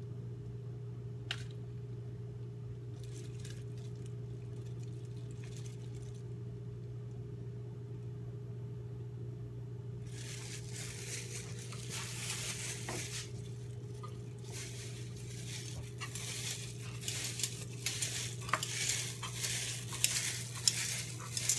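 A steady low hum, then from about halfway a dense crinkling and scraping with light clinks that grows louder toward the end: plastic-gloved hands working spoons in small bowls of lip gloss base.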